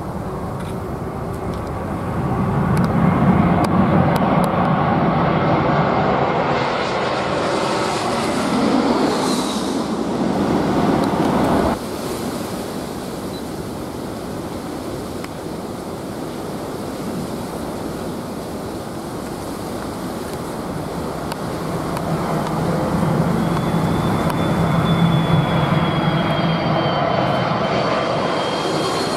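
Twin-engine jet airliners on final approach passing low overhead. The engine noise swells as the first one nears, and a high fan whine drops in pitch as it goes over. The sound cuts off abruptly about twelve seconds in, and another jet's noise builds up toward the end with a high whine.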